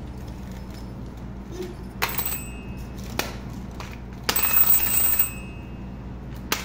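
A small bell-like ring struck twice, about two seconds in and again about four seconds in, each ringing briefly at a fixed pitch, with a few light taps and a steady low hum.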